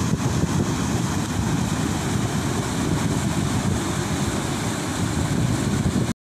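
River water rushing over a low weir, a steady roar mixed with wind buffeting the microphone; it cuts off suddenly near the end.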